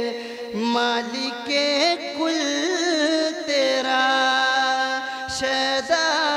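A naat reciter's unaccompanied voice singing long, drawn-out notes without clear words, the pitch sliding up and down in ornamented turns between lines of the naat.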